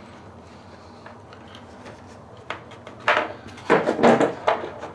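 Hands handling snowmobile battery cables and the metal ring terminals: quiet at first, then a few light clicks and a burst of clinking and rattling in the second half.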